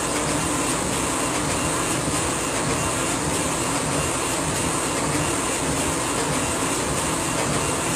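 Laser engraving machine running as it engraves a photo, a steady, even mechanical noise from the machine's moving head and fans.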